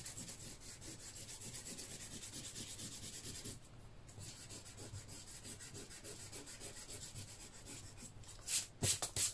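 Rubber eraser rubbing pencil lines off watercolour paper in quick, even back-and-forth strokes. There is a short pause about three and a half seconds in, and a few louder strokes near the end.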